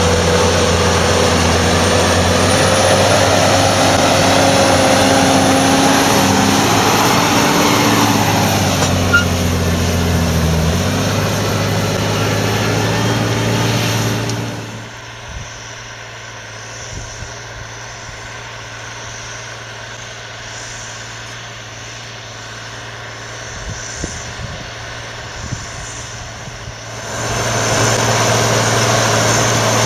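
John Deere 8420 tractor's six-cylinder diesel working hard under load, pulling a Horsch Tiger 3MT cultivator at full depth. The engine note dips and recovers about a third of the way in. It is much quieter from about halfway and loud again near the end.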